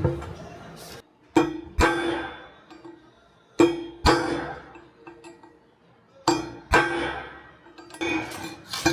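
Hammer striking a steel chisel driven against a progressing cavity pump's thrust plate, which is stuck to the rotor head with concrete. The blows come in pairs a few seconds apart, each with a ringing metallic tone.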